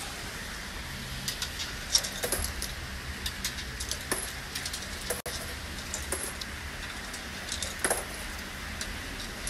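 Scattered light metallic clinks and taps from a hand working a stainless-steel electric votive candle stand, with a few louder clinks about two seconds in and near the end, over a faint steady low hum.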